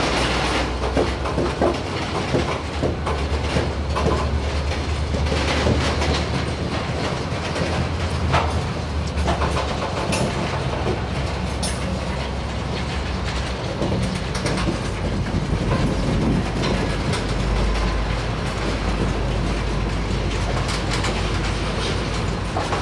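Freight train of black tank cars rolling slowly past, wheels clicking over the rail joints in an irregular clickety-clack over a steady low rumble.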